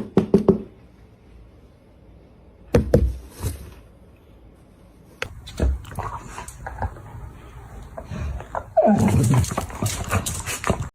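A pet animal's sounds: scattered knocks and clicks, then near the end a loud, falling animal cry over scuffling noise.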